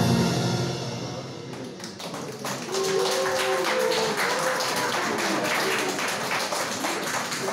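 The last note of a morin khuur (horsehead fiddle) fades away, then the audience claps, a few scattered claps at first, building to steady applause from about two and a half seconds in.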